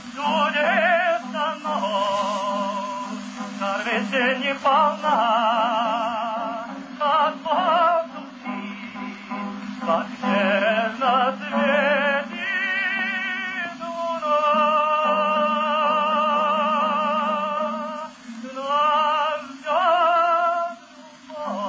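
Operatic singing: a high solo voice with a wide vibrato sings phrases over a steady low accompaniment, holding one long note in the middle.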